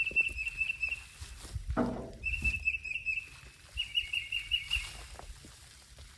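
A songbird singing a quick, high trilled phrase three times, with low scuffing and thumping underneath.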